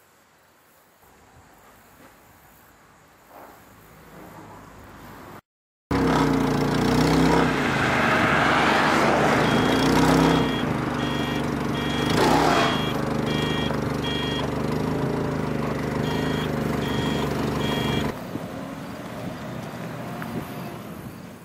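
Propane forklift engine running, with its back-up alarm beeping in two runs of evenly spaced high beeps. The sound starts suddenly about six seconds in and eases off near the end as a box truck pulls away.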